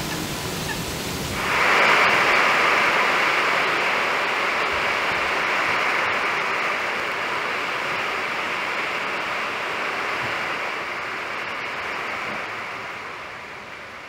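Steady hiss of falling rain, growing suddenly louder and brighter about a second and a half in, then easing slightly near the end.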